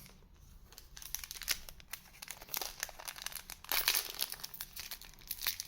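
Foil trading card booster pack wrapper crinkling in the hands, with irregular small crackles and a little tearing as the pack is handled and opened.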